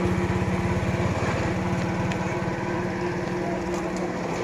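A small engine running steadily, with a constant low hum and fast, even pulsing.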